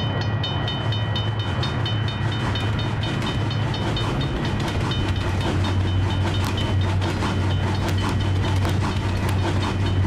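Sound effect of a train passing a railway level crossing: a steady low rumble with wheel clicks that come more often in the second half, over a crossing warning bell ringing about three times a second.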